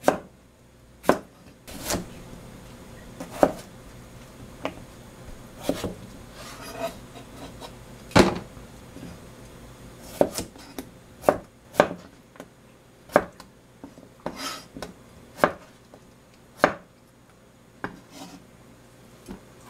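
Kitchen knife chopping through a large cucumber onto a white plastic cutting board: single sharp knocks of the blade hitting the board, at an uneven pace of about one a second.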